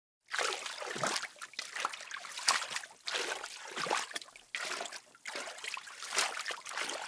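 Water sloshing and splashing in uneven surges about once a second, stirred by a Malayan tapir wading mostly submerged through a pool.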